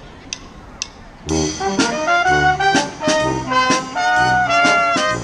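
A couple of sharp, evenly spaced clicks, then a little over a second in a brass band of trumpets, trombone and sousaphone strikes up loudly, playing a lively jazz tune.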